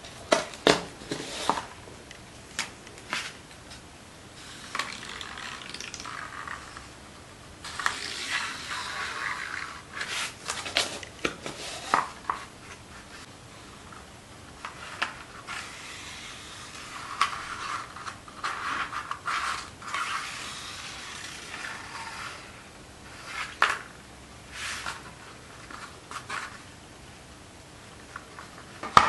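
Handling and scraping noises from a paper-covered board: a cluster of sharp clicks and knocks near the start, then several stretches of rubbing and scraping a few seconds long, with scattered taps in between.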